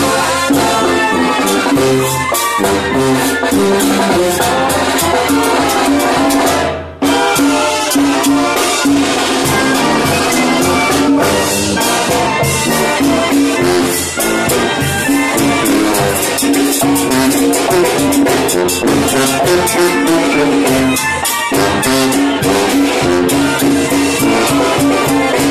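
Mexican banda playing live: trumpets and trombones over sousaphone bass, with drum kit, tambora bass drum and conga keeping the beat. The sound drops out briefly about seven seconds in.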